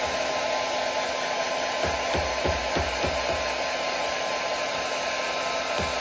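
Hand-held blow dryer running steadily on its fan setting with no heat, a continuous rushing blow. A run of soft low thumps sounds through it in the middle and again near the end.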